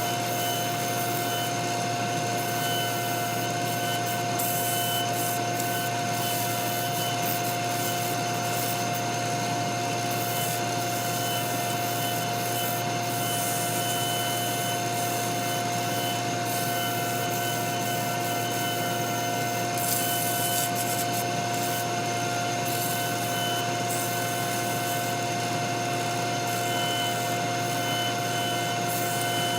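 Wood lathe running steadily, with the hiss of a tool or abrasive rubbing against the spinning walnut workpiece.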